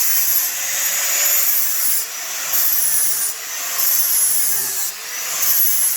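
Angle grinder grinding down leftover spot-weld remnants on a steel car frame rail: a loud, steady grinding hiss with a high whine that dips in pitch a few times as the disc is pressed into the metal.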